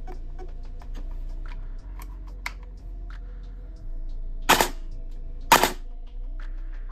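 Airsoft electric gun (AEG) with a DSG gear and a MOSFET set to two-round burst, fired twice about a second apart. Each burst is so fast that its two shots nearly run together into one.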